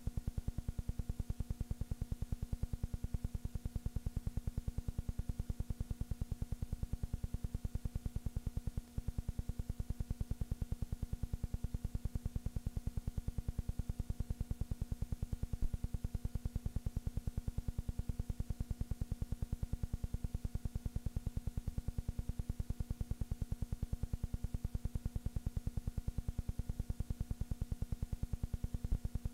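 Steady electrical hum and buzz with a fast, even pulsing, unchanging throughout: noise on the soundtrack of silent film footage rather than any sound from the game.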